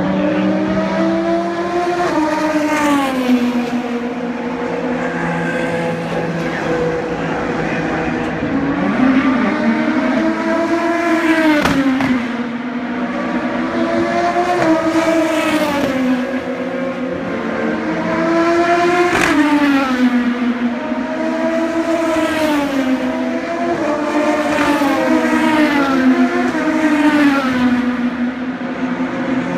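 Race car engines on a street circuit, one car after another: each engine note rises as a car accelerates and drops as it brakes and passes, with several loud sharp pass-bys.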